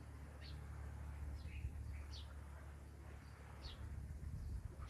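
Small birds chirping: short, high, falling chirps repeated at irregular intervals over a low steady rumble.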